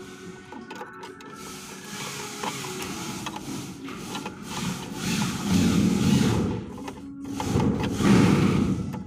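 Rapid run of small plastic clicks as the switching segments on the dial of a Theben SUL 181d mechanical timer are pushed over one after another with a tool, setting the off period. It comes in two louder runs, about halfway through and near the end.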